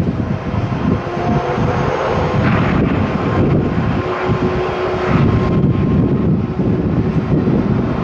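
Jet engines of a Boeing 767 airliner on its landing roll just after touchdown, a continuous roar that grows louder and brighter two to three seconds in. Gusty wind rumbles on the microphone underneath.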